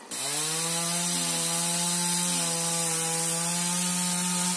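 Two-stroke chainsaw running at full throttle: its pitch climbs briefly at the start, holds steady and loud for about four seconds, then drops away as the throttle is released.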